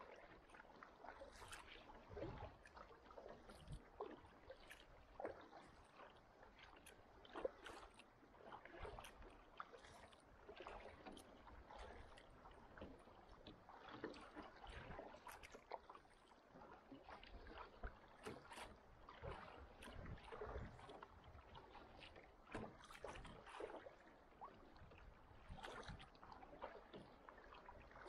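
Faint splashing of a kayak paddle dipping into calm sea water stroke after stroke, with water lapping and trickling along a sit-on-top kayak's hull.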